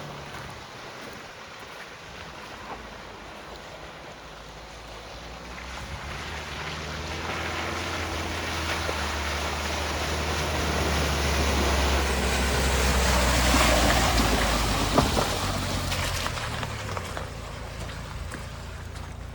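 Dacia Duster's 1.5 dCi diesel engine running as the car drives off-road, a low steady engine hum with tyre and wind noise. The sound swells through the middle and peaks about two-thirds of the way through, with one sharp knock just after.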